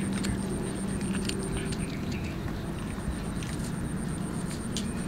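Kitten chewing and tearing at raw tuna, scattered wet clicks and smacks of its teeth and mouth, over a steady low background rumble.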